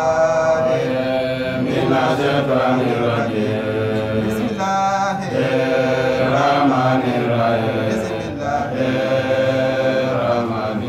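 A man chanting a religious recitation in long, drawn-out notes that waver and bend in pitch, with only short breaks for breath.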